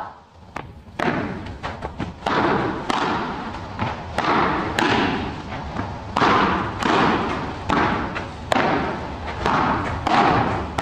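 Padel rally: the ball is struck back and forth by solid padel rackets in a quick run of sharp, echoing hits.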